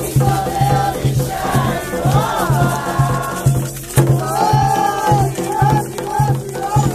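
Voices singing a melodic chant over a steady, evenly repeating hand-drum beat, with a rattle shaking along: Afro-Brazilian ritual music for Xangô.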